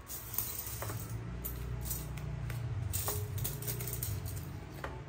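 Metal hand tools being handled and set down: a few scattered light metallic clicks and clinks over a low steady hum.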